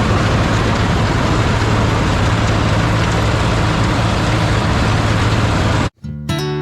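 Heavy farm machine's engine running steadily and loudly, cutting off abruptly near the end as acoustic guitar music comes in.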